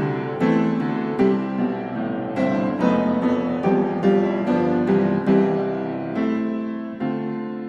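Background music: a gentle solo piano piece, single notes and chords struck and left to ring.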